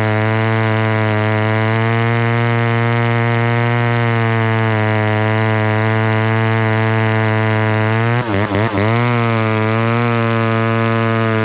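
Two-stroke chainsaw running steadily at high speed, most likely under load in a cut. About eight seconds in its engine note dips sharply three times in quick succession, then picks back up.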